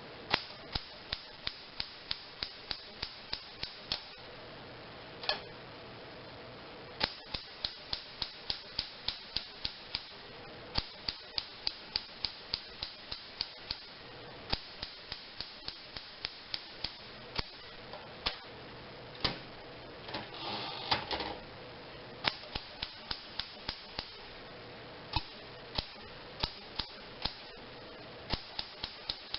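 Keys of a 1950s Smith Corona Riviera manual typewriter striking the platen, in runs of about three to four sharp clacks a second broken by short pauses. About two-thirds of the way through there is a brief rattling burst among the keystrikes.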